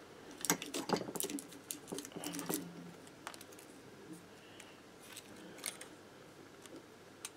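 Light metallic clicks and taps from a two-stroke moped engine being taken apart by hand: the removed aluminium cylinder and the piston and studs on the crankcase knocking together. A flurry of clicks in the first couple of seconds, then a few scattered single clicks.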